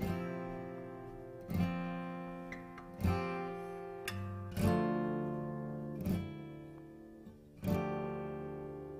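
Acoustic guitar music: a chord strummed about every second and a half, each left to ring and fade before the next.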